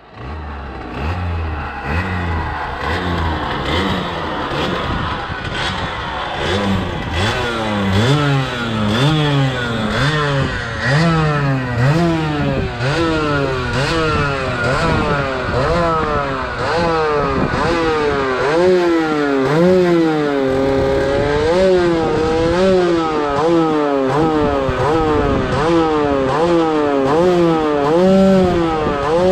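Beta RR 50's 50cc two-stroke single-cylinder engine, running on its original exhaust with the central restrictor removed. It is revved over and over in quick blips, about one a second, each rising and then falling back. It runs lower and steadier for the first second or two.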